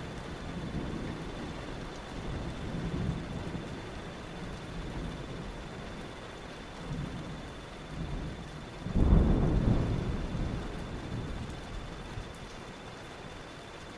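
Thunderstorm ambience: steady rain with low rolling thunder. The loudest peal comes about nine seconds in and rumbles away over the next two seconds, with a faint steady high tone underneath.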